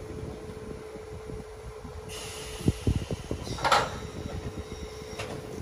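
Harz narrow-gauge steam locomotive 99 7239 standing on a turntable, with a steady whine throughout. Steam hisses for about a second and a half from about two seconds in, then comes a short, louder burst; a few low knocks fall in between.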